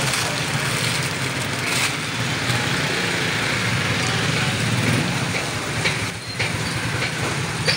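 Steady street-market background noise: a constant low mechanical hum under a haze of traffic noise and faint voices.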